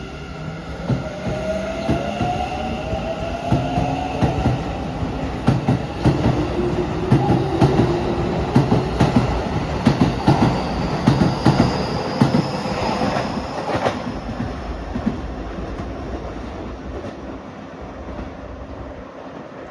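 Keikyu New 1000 series electric train pulling away from the station. Its traction motors give a whine that rises in pitch as it accelerates, while the wheels clack over rail joints for about ten seconds. The sound then fades as the train leaves.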